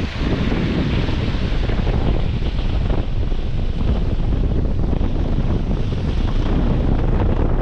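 Strong wind buffeting the microphone, over waves washing onto a stony beach.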